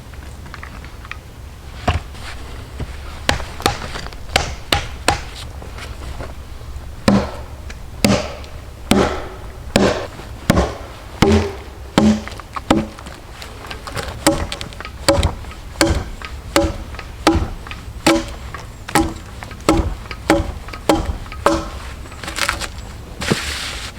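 A hand tool striking wood again and again, as in chopping: sparse blows at first, then a steady run of about three blows every two seconds, each with a short pitched ring.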